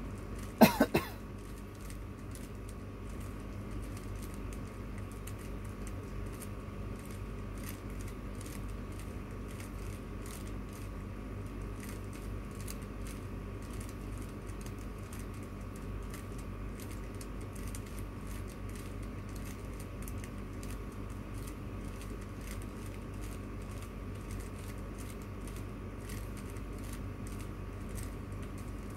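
Plastic 3x3 puzzle cube being turned by hand: a continuous run of quick small clicks and clacks as its layers are rotated. About a second in, a short loud pitched sound cuts in briefly.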